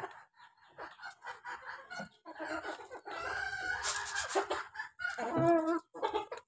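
Chickens clucking and squawking, with a rooster crowing for about two seconds in the middle.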